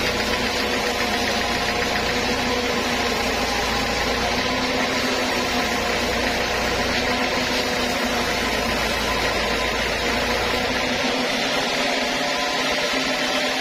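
Large band saw running steadily as a teak slab is fed by hand through its blade, a constant mechanical sound with several steady tones in it. A low hum underneath drops out about eleven seconds in.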